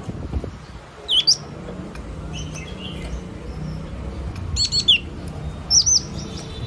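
Yellow-cheeked tit calling: short, high, downward-slurred chirps in three bursts, one note-pair about a second in, a quick run of four about two-thirds through, and two more near the end.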